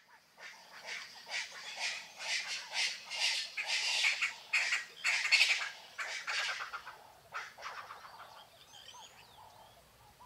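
Birds squawking in a rapid series of harsh calls. The calls swell to their loudest about five seconds in and die away by about seven seconds, leaving faint chirps and whistles.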